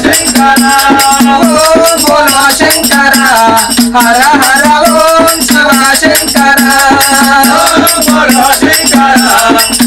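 Oggu Katha devotional singing: voices chanting a melodic refrain over a fast, steady beat on the oggu, the small hand drum of the form, with jingling percussion throughout.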